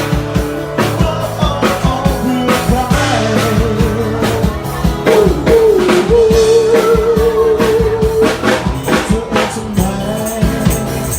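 Live rock band playing a Thai pop-rock cover: a drum kit keeps a steady beat under bass and guitars, and a lead line holds one long wavering note about halfway through.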